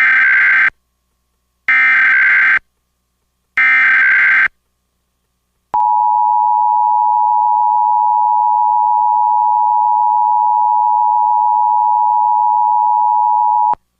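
Emergency Alert System SAME header: three short, loud, screeching digital data bursts about a second apart. They are followed by the EAS two-tone attention signal, held steady for about eight seconds and then cut off. Together they open a Required Monthly Test alert.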